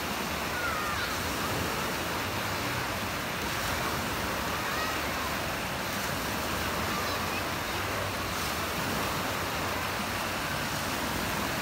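Machine-made waves in a pool breaking and churning: a steady rushing wash of water.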